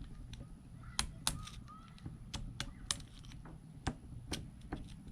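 Irregular sharp taps and clicks of a small hand tool chipping rust and rock crust off a corroded Civil War revolver, about two a second.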